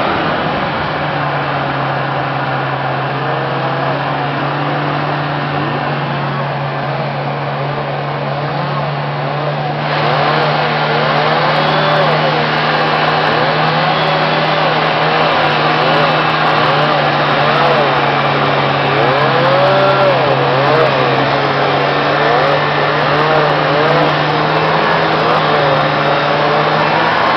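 1971 Northway MKII snowmobile's 400cc two-stroke engine running under way, its pitch rising and falling again and again with the throttle. It gets louder about ten seconds in.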